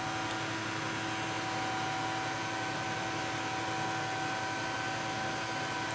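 Steady background hum with an even hiss and a few constant tones, like a fan or other small machine running, unchanging throughout.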